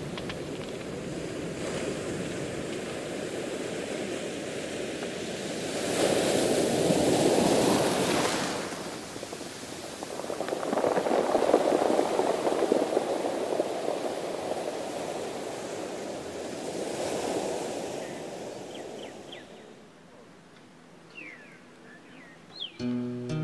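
Ocean surf: waves breaking and washing in, swelling three times, then easing off. A few short high chirps near the end.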